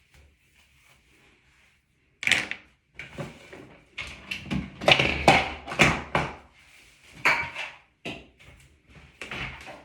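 Irregular handling sounds: a run of knocks and rustles starting about two seconds in.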